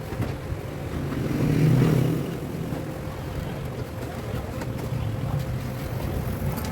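Window air conditioner running: a steady motor hum with a constant tone, swelling louder briefly about two seconds in.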